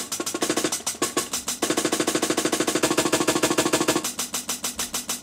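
Chopped breakbeat drum loop played from a Make Noise Morphogene through the QPAS's high-pass outputs. A clock restarts its one-beat slices rapidly, so the drums stutter in a fast, roll-like repeating pattern. The slice being repeated changes about a second and a half in and again near four seconds.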